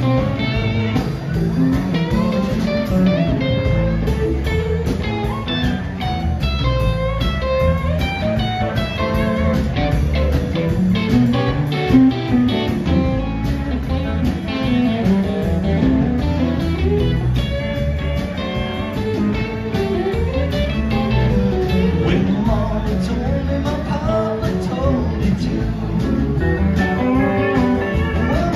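Live blues-rock band playing: electric guitars, bass guitar and a drum kit.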